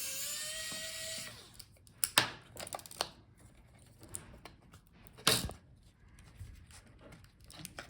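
A brief rising squeak at the start, then scattered light clicks and taps from tools and laptop parts being handled on the bench, with one louder click about five seconds in.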